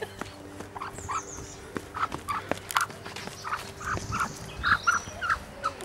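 Black Star hen, held in a child's arms, giving a run of short clucks, about two a second, from about two seconds in.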